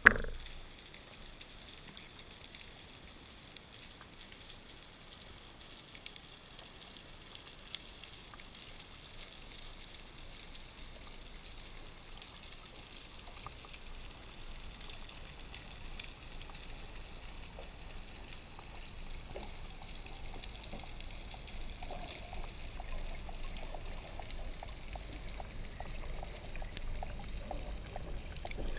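Underwater ambience heard through a camera housing on a speargun: a steady faint hiss with scattered small clicks and crackles. There is a sharp knock right at the start and a lone click about eight seconds in. The water noise slowly grows louder in the second half as the diver rises toward the surface.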